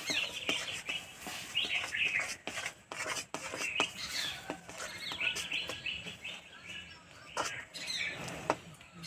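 A metal ladle scrapes and clicks against a metal wok as roasted sesame seeds are poured into hot jaggery syrup and stirred through, with a few sharper knocks near the end. Birds chirp throughout.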